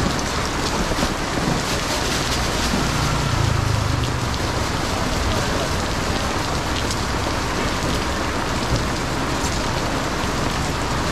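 Heavy rain pouring steadily. A brief low rumble rises under it about three seconds in.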